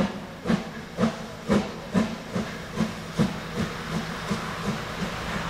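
Narrow-gauge 2-10-2T steam tank locomotive 99 7245-6 starting away with its train: sharp exhaust chuffs, about two a second, quickening and growing fainter over the first few seconds, over the steady hiss of steam from the cylinder drain cocks, which is all that is left near the end.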